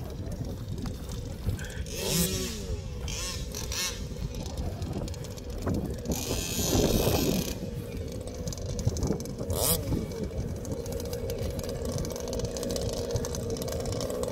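Small two-stroke petrol engines of large-scale RC cars idling steadily, with a louder rush of noise about six seconds in that lasts a second or so.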